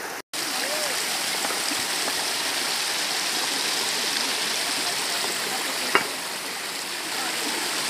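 Shallow stream running and trickling over rocks, a steady rush of water, with a single sharp click about six seconds in.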